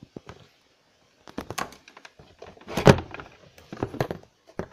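Handling noise: a scatter of knocks, clicks and short rustles, with one louder thump about three seconds in.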